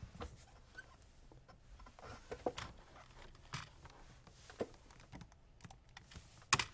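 Irregular keystrokes on a computer keyboard, a few scattered taps at a time, with a louder cluster of clicks near the end.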